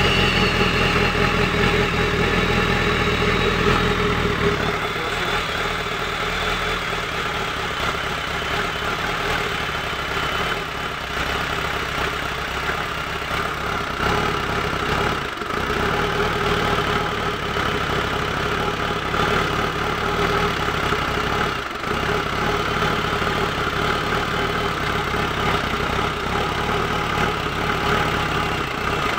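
Mitsubishi Pajero 4M40 four-cylinder diesel engine idling just after a start. It runs faster for the first few seconds, then settles to a steady idle, with two brief dips in the middle.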